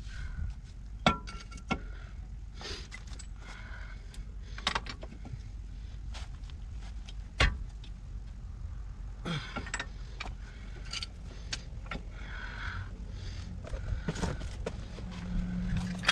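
Scattered clicks, knocks and metallic clinks of hand tools and metal parts being handled at a Jeep Cherokee XJ's front wheel hub and brake assembly, with two sharper clicks about a second in and midway. A steady low hum comes in near the end.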